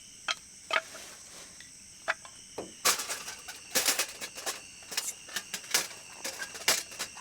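Night insects, crickets among them, chirring steadily at a high pitch, with scattered sharp clicks and clacks, a quick cluster of them about three to four seconds in.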